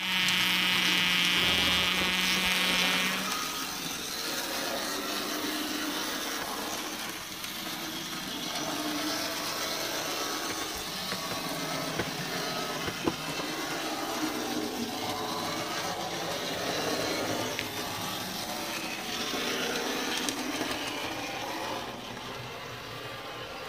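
Small electric motor (a KW Trams/Bec motor) of an HO-scale model tram running, with its wheels on the track: a steady whirring hum. It opens with a louder high-pitched whine over a low hum for about three seconds, and there is one sharp click about halfway through.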